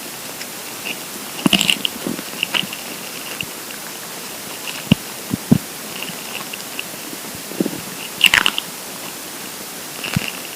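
Empty stomach gurgling with hunger: irregular short wet squelches and low pops over a steady hiss. One gurgle about eight seconds in slides down in pitch.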